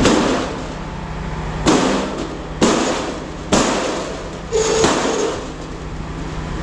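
A series of sharp metal-on-metal blows, about a second apart, struck at a piece of stainless steel scrap to break a part off it. One blow near the end leaves a short ring.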